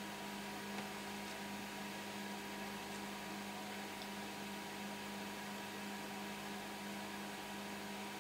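Steady electrical hum with a low main tone and fainter higher tones over a faint hiss, with a few very faint ticks.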